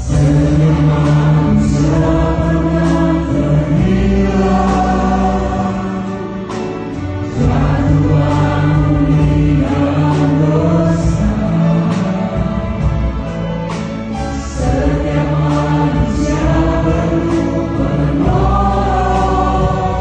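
A Christian worship song performed live by a small group of singers with a string orchestra of violins and cellos, piano and guitars. Sustained sung phrases over the strings, with a brief lull between phrases about six seconds in and again near fourteen seconds.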